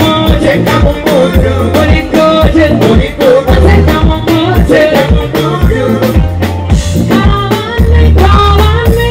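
Live band music with a steady beat from drum kit, bass and electric guitar, and a woman singing lead into a microphone.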